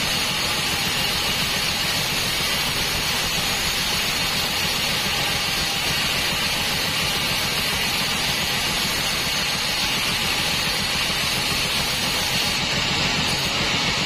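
Sawmill bandsaw running and ripping a teak beam lengthwise: a steady hiss of the band blade cutting through the wood over the machine's low, even hum.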